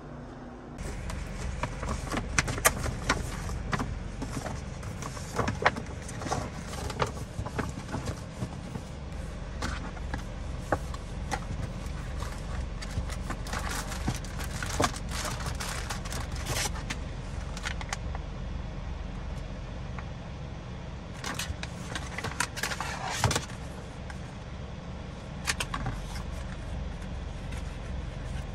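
Steady low rumble inside a car cabin, with the rustling, crinkling and clicks of a paper gift box and plastic packaging being opened and handled.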